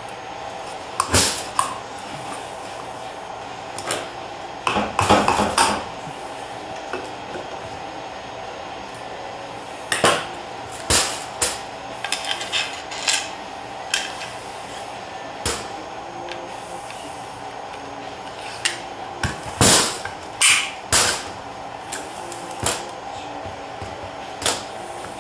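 Scattered clusters of sharp metal clicks, taps and knocks as small steel valves, springs and retaining pins are handled and pushed into a TH350 automatic transmission's aluminum valve body, over a steady background hum.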